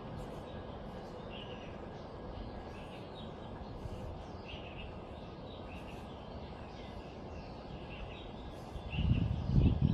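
Outdoor ambience: small birds chirping in short, scattered calls over a steady background hum. Near the end a louder low rumble rises briefly.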